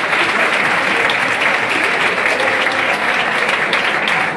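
Audience applauding, a dense steady clapping that thins slightly near the end.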